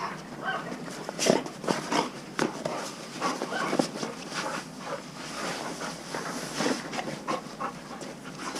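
A dog moving about in a shelter kennel: irregular scuffles, clicks and taps, with a few brief, faint whine-like sounds.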